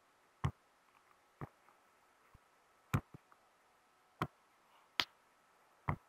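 Rainbow silicone pop-it fidget toy being pressed bubble by bubble with a finger: about seven separate pops, irregularly spaced, two of them close together about three seconds in.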